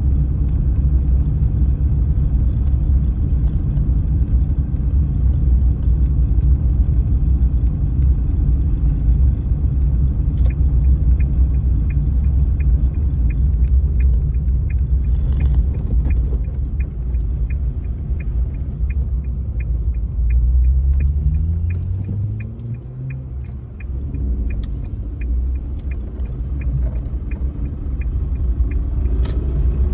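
Steady road and engine rumble inside a moving car's cabin. About ten seconds in, the turn-signal indicator starts ticking, about two ticks a second, and stops near the end. Partway through the ticking the rumble eases and changes pitch as the car slows.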